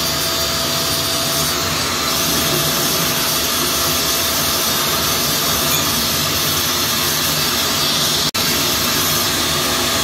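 VANPORE 1200 W ash vacuum running steadily at full suction: an even rush of air with a constant high whine, with a split-second break about eight seconds in.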